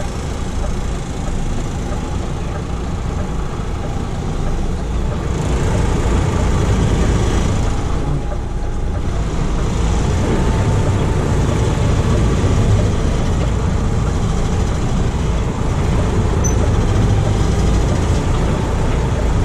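Truck engine running steadily: a continuous low rumble with a steady wash of noise above it, getting slightly louder a few seconds in.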